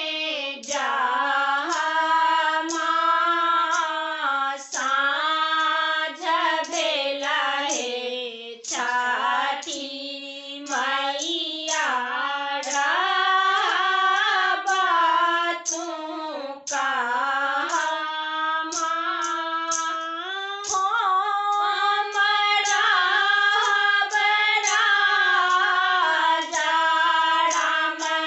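Three women singing a Maithili Chhath devotional folk song together, a sanjh (evening) song for Kharna, in one melodic line with short breaks for breath.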